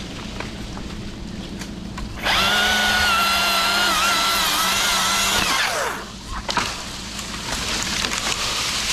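Chainsaw running at full throttle for about three seconds, its pitch holding steady with a slight waver, then falling away as the throttle is released. Before and after it there is a crackling, noisy background with a few sharp clicks.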